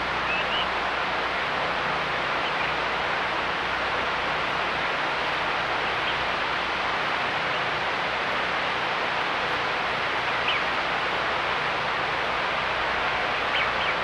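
Steady hiss of a trail camera's microphone, with a few faint, short high chirps now and then.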